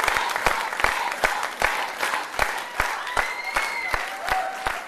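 Audience applauding, clapping together in a steady rhythm of about two and a half claps a second.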